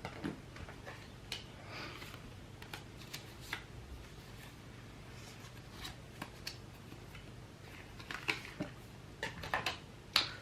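Scattered light clicks, taps and short rustles of small items being handled by hand, coming thicker and louder in the last couple of seconds.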